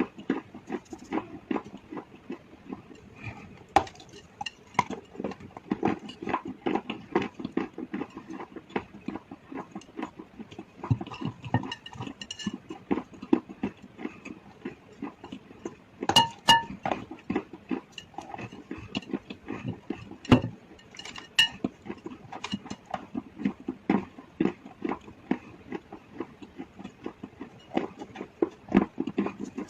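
Close-miked mouth chewing and crunching hard chalk and slate pencil, a dense run of gritty crackles with a few sharper, louder snaps about 16, 20 and 21 seconds in.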